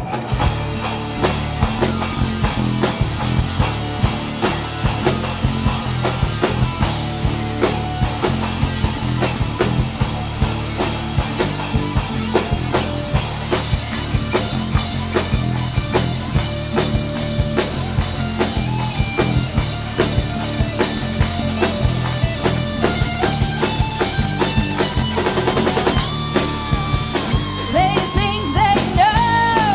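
Live rock band playing an instrumental passage: a drum kit keeps a steady driving beat under two electric guitars and a bass guitar, with no singing.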